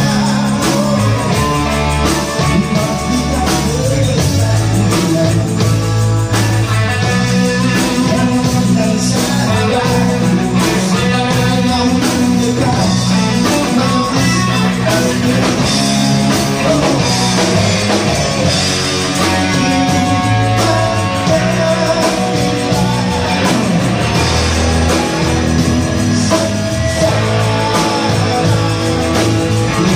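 Live rock band playing: a singer over distorted electric guitars and drums.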